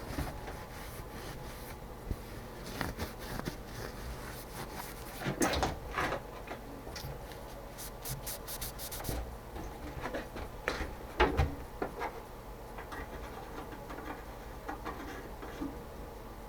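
Workshop handling sounds: rubbing and scraping with scattered light knocks, the loudest a few seconds in and about two-thirds through, and a quick run of sharp clicks about halfway.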